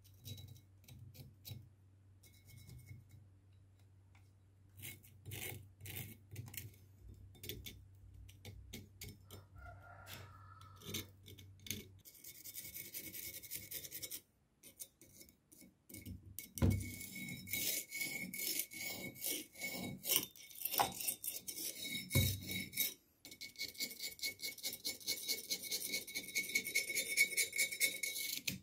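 A small screwdriver tip scraping and picking at caked rust and dirt on an old steel axe head. It starts as scattered short scratches and clicks, then from about halfway turns into rapid, continuous scraping with a couple of dull knocks.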